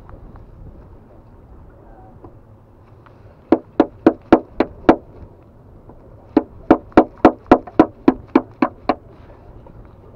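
Sharp rhythmic tapping of hand tools prying oysters off a rock: pliers used in place of a hammer to strike a screwdriver. Two runs of strikes, about six and then about ten, at roughly three or four a second.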